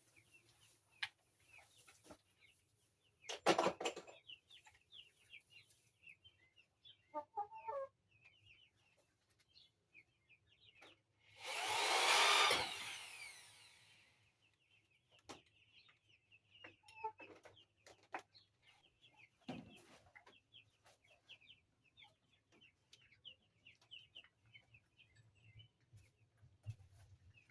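A Bauer electric drill runs for about two seconds near the middle, its whine rising then falling as it drives a screw. Young chickens peep and chirp throughout, with a few sharp knocks of wood and tools.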